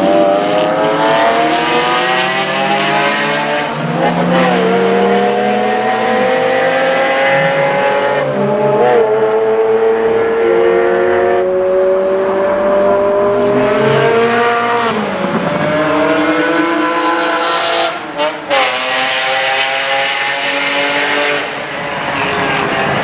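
1992 Ferrari 512 Testarossa's flat-12 engine, probably not on its standard exhaust, revving hard up through the gears. The pitch climbs steadily, then drops at each gear change. A little past three-quarters of the way through there is a short lift off the throttle with quick blips.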